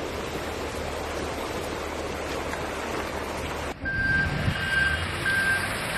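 Steady rush of water as a car ploughs through a flooded road. After an abrupt cut near the end, a vehicle's reversing alarm beeps about twice a second over a low engine rumble.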